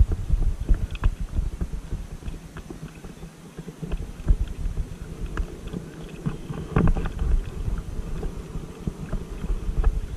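Wind buffeting the microphone over water splashing and dripping from double-bladed paddle strokes beside an inflatable kayak. The wind rumble is heaviest at first and eases off, and there is a louder splash about seven seconds in.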